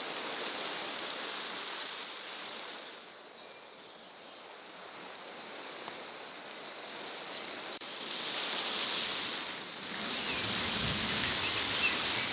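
Rain hissing steadily on leaves and ground, easing off for a while and swelling again later, with a few faint bird chirps near the end.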